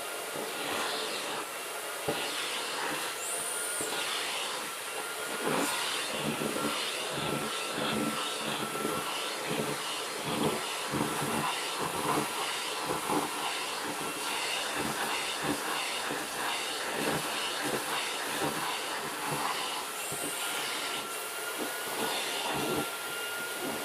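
Vacuum cleaner running steadily with a thin high whine, its nozzle drawn through a Maine coon cat's long fur, the airflow noise surging unevenly as it moves.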